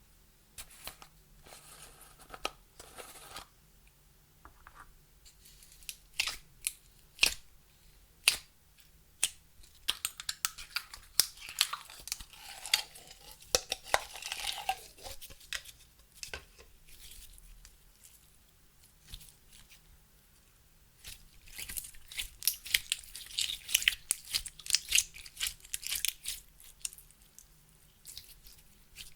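Clear slime being worked and squished by hand, giving sharp crackling pops and clicks, with two longer busy stretches of dense crackling.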